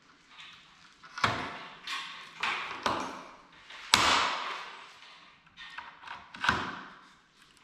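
Hand riveter setting blind rivets through PVC-coated metal angle strip: a series of sharp metallic clacks and snaps, about six at uneven intervals, each ringing out briefly.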